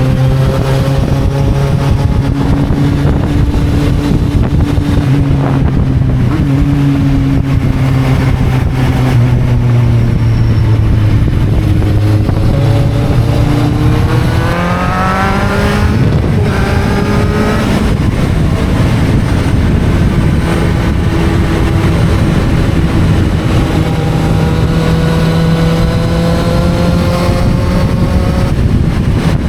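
Kawasaki Z750's inline-four engine under way: it holds a steady note, then about halfway through revs up in a rising sweep. It drops sharply at a gear change, climbs again briefly and settles back to a steady cruise for the rest.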